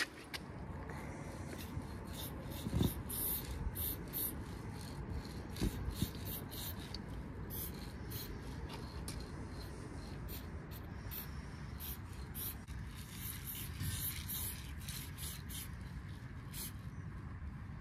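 Aerosol spray paint can hissing in many short, irregular bursts as paint is sprayed onto a wall, over a steady low rumble.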